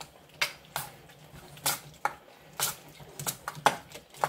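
A utensil stirring thick blue cheese dressing in a stainless steel mixing bowl, with irregular clinks and scrapes against the metal about three times a second.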